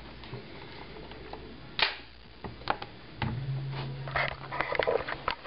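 Clicks and knocks of a Mossberg .22 tactical rifle with a plastic vertical-grip bipod being handled and set down on a wooden table, the loudest knock about two seconds in. A short low hum runs under the later clicks.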